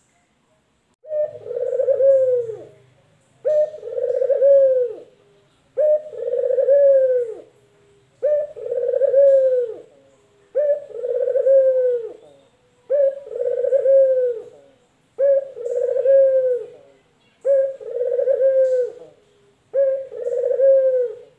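Male local collared dove (puter lokal) cooing in its cage: nine long coos, about one every two and a half seconds, each a short note running into a longer coo that drops in pitch at the end.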